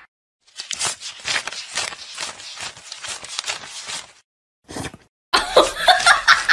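A stack of paper banknotes being riffled and flicked by hand: a quick run of crisp papery flicks lasting about three and a half seconds. About five seconds in, a louder run of high-pitched squeaky calls starts.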